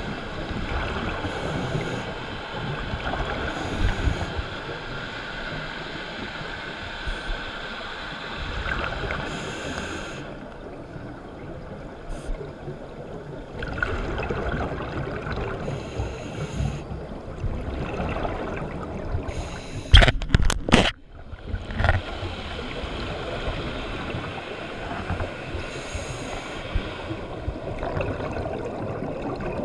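Scuba divers' regulator exhaust bubbles gurgling and rushing, heard muffled underwater through a camera housing, with a brief hissing burst every few seconds as breaths are let out. A few sharp knocks come about twenty seconds in.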